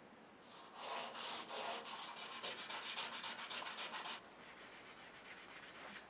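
Metal lighter part rubbed back and forth on a sheet of sandpaper: rapid scratchy sanding strokes that start about half a second in and drop off sharply about four seconds in, leaving a fainter scratching.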